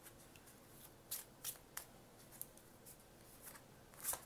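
Faint, short rustles and snaps of Oracle of Oddities cards being handled and shuffled by hand, a handful spread apart, the loudest just before the end as a card is drawn.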